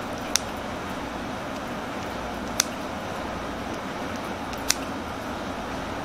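Kitchen scissors snipping through folded sheets of pre-cooked flatbread dough: three sharp clicks as the blades close, about two seconds apart, over a steady background hiss.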